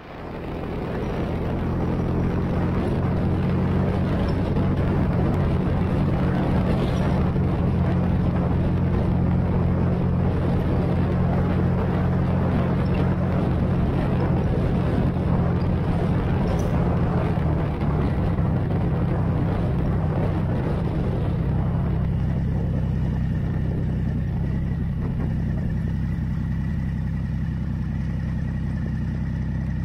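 Motorcycle engine running steadily at cruising speed with wind and road noise rushing over the microphone. A little past halfway the engine eases off and the wind noise falls away as the bike slows in traffic, leaving a lower, steadier engine note.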